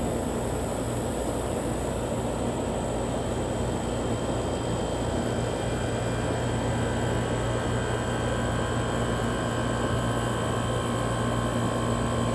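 1993 Comfort-Aire window heat pump running in cooling mode: the fan blows a steady rush of air over the low, even hum of the compressor.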